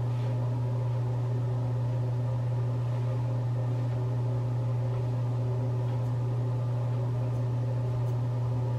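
Steady low electrical hum with a ring of fainter higher tones, unchanging throughout. A few faint snips of hair-cutting shears trimming ends sound over it.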